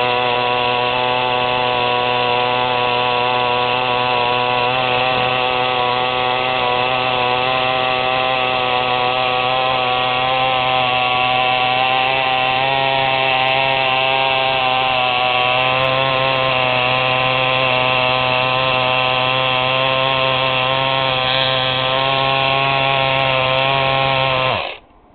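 Small battery-powered toy electric outboard motor running steadily with a loud, high buzz, like a little .049 model airplane engine; it cuts off suddenly near the end.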